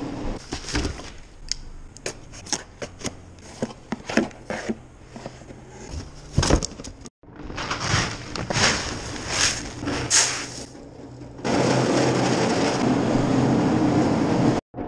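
Sharp irregular clicks and knocks, then the crackling rustle of grain feed scooped from a sack with a plastic bucket. A steady, louder rushing noise begins about three-quarters of the way in and ends abruptly.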